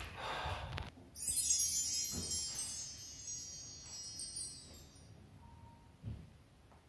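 A high, shimmering chime like a wind chime sets in suddenly about a second in, with many bright tones ringing together and fading away over about four seconds. A soft low thump comes near the end.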